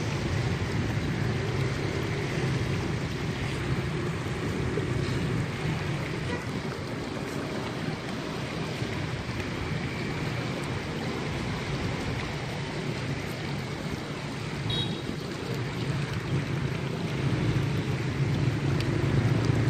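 Steady lakeside noise of wind and splashing water, with a low, even rumble underneath and no distinct events.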